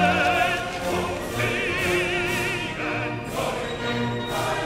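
Background music: classical operatic singing with strong vibrato, held notes changing every second or so.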